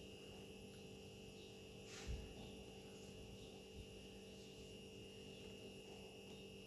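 Near silence: a faint steady electrical hum with a thin high whine, and one brief soft brush and thump about two seconds in.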